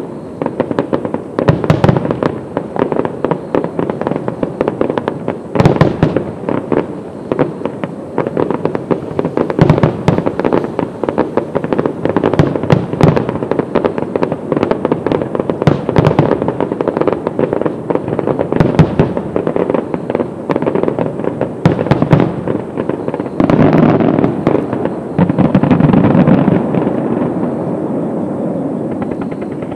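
Rapid-fire fireworks display: a dense run of sharp bangs and crackles, several a second, from aerial shells and ground set pieces. About 23 seconds in, the separate bangs give way to a steady rushing hiss that slowly fades toward the end.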